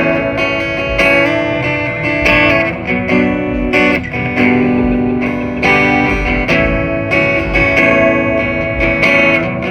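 Acoustic guitar strumming chords in a steady rhythm, with a new strum roughly every second.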